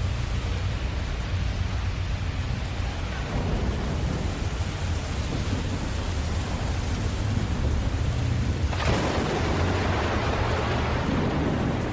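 Steady rain with a low rumble of thunder underneath. About nine seconds in, the rain noise suddenly turns louder and brighter.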